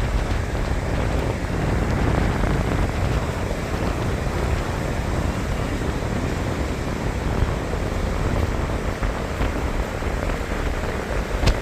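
Steady rushing noise of wind on the microphone and breaking surf, with one short knock near the end.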